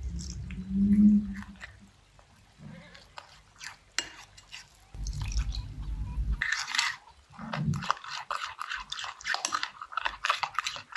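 Milk poured from a cup onto flour in a ceramic bowl. Then a metal spoon stirs it into batter, with rapid wet clicks and scrapes against the bowl from about halfway on. A brief low rumble comes just before the stirring.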